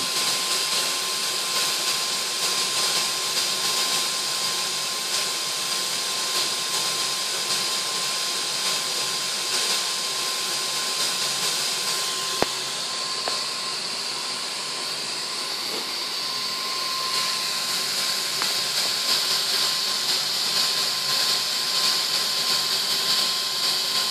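Steady hiss of a seven-head brass multi-jet burner's flames, burning a mix of compressed air, HHO gas and hexane, with a thin steady whine underneath. There is a single sharp click about twelve seconds in, and the hiss grows slightly louder in the last few seconds.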